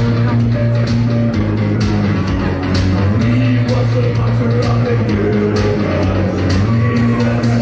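Live rock band playing: electric guitars over a bass line of long held low notes that change every second or so, with a steady beat of drum hits.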